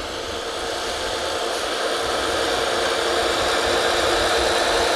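Drilling rig's engines and pump machinery running with a steady mechanical drone that slowly grows louder.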